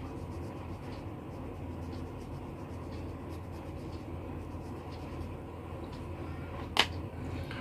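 Colouring on a paper worksheet: steady scratchy strokes of a colouring tool on paper, over a low steady hum, with one sharp tap near the end.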